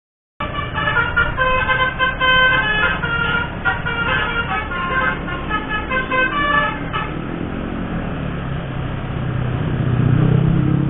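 Basuri "telolet" multi-tone horn playing a jaunty melody, its notes stepping up and down for about six seconds before it stops. A vehicle engine then runs on, growing louder toward the end.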